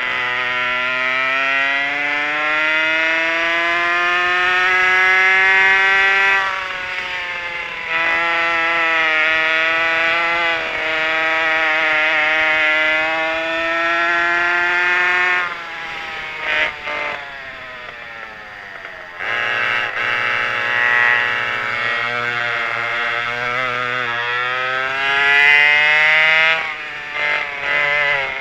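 A vintage kart's pair of McCulloch 5.3 cubic-inch two-stroke chainsaw engines at racing speed, climbing in pitch on the straights. The engines fall off as the throttle is lifted for corners, about six seconds in and again at about sixteen to nineteen seconds with a few brief blips, then climb again.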